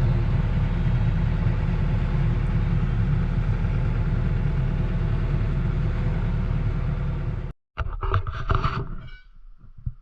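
A motor running steadily that cuts off abruptly about seven and a half seconds in, followed by a few sharp knocks.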